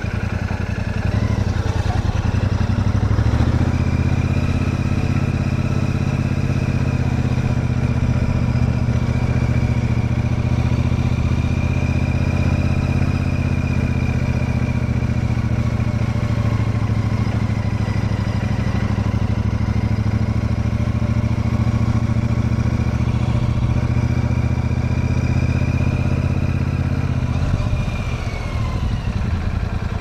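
Royal Enfield Super Meteor 650's 648cc parallel-twin engine running while the bike is ridden. The engine note rises about three seconds in, holds steady, then eases off near the end.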